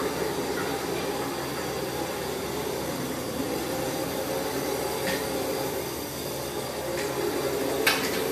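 Heat cannon running steadily with a blower hum, warming the PVC stretch-ceiling film so it can be stretched into place. A few short sharp clicks come over it, the loudest near the end.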